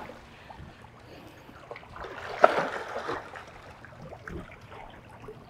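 Small waves lapping and trickling against shoreline rocks, with scattered faint clicks and one brief louder knock about two and a half seconds in.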